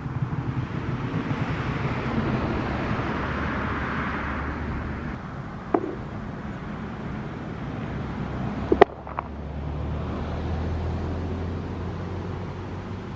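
A vehicle passing on the road, its noise swelling and then fading over the first few seconds, with a few sharp clicks around the middle, the loudest about nine seconds in.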